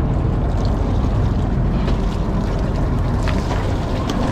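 Fishing boat's engine running steadily, with a few light knocks about two, three and four seconds in.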